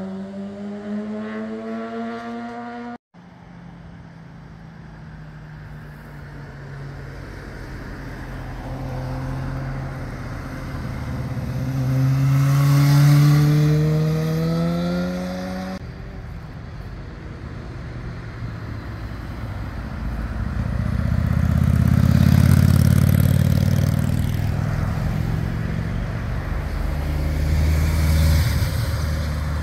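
Motorcycles passing one after another through a bend, their engines changing pitch as they back off and then accelerate, with a rising note as a green sport bike pulls out of the curve. Cut short about three seconds in and again around halfway, it ends with a large air-cooled four-cylinder naked bike rumbling close past.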